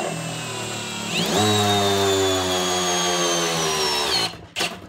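Milwaukee 2704 brushless hammer drill in hammer mode, driving a 3.5-inch lag screw into wood. The motor turns slowly at first, then speeds up with a sharply rising whine about a second in. It sinks slowly in pitch as the lag goes deeper, then stops a little after four seconds.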